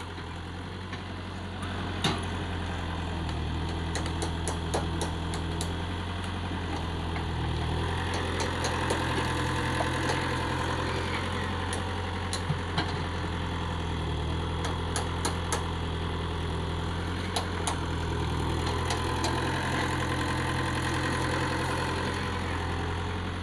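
Komatsu mini excavator's diesel engine running steadily, its note shifting now and then as the hydraulic arm and bucket work. Short sharp knocks sound at scattered moments throughout.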